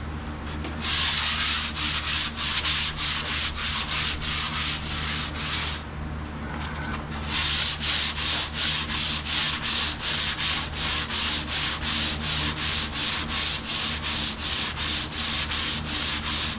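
Hand sanding painted car body panels with sandpaper: quick back-and-forth strokes, about four a second, with a short pause partway through, sanding out paint runs.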